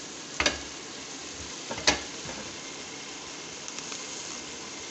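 Beef curry gravy sizzling in an open aluminium pressure cooker, a steady hiss: the ghee has separated and the masala is frying in its own fat. Two sharp knocks come about half a second and two seconds in, the second one louder.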